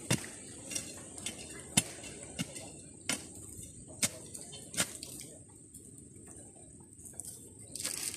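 A stick jabbing and scraping into stony soil while digging out a hole, with sharp knocks about once a second for the first five seconds, then quieter, and a short rustling scrape near the end.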